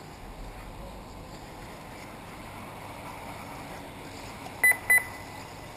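Two short, high electronic beeps about a quarter-second apart, near the end, over a steady background hiss.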